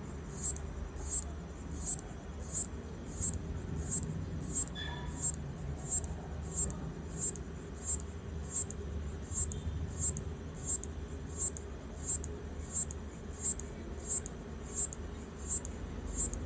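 Locust stridulating: short, high-pitched chirps repeating at a steady rhythm, about three every two seconds.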